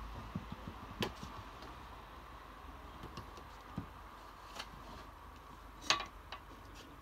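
Quiet room tone with a faint steady hum and scattered small clicks and taps, the sharpest about six seconds in.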